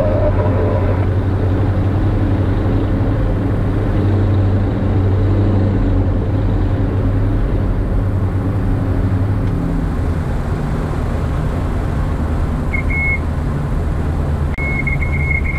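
Diamond DA42's twin engines droning in the cockpit on short final, the engine note changing about ten seconds in as power comes back. Near the end a high warning tone sounds briefly, then again in quick pulses: the stall warning as the aircraft flares over the runway.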